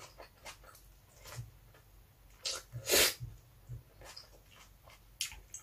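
Close-miked mouth sounds of a person eating a tomato: soft chewing clicks and wet smacks, with a short sharp airy burst about three seconds in that is the loudest sound.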